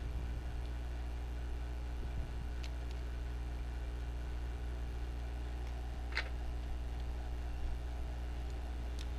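Steady low background hum with a few faint, short clicks scattered through it, the clearest about six seconds in.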